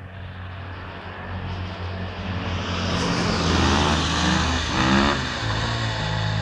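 KTM 525 single-cylinder four-stroke dirt bike engine approaching, growing louder. A car passes close on the wet road between about three and five seconds in, the loudest part.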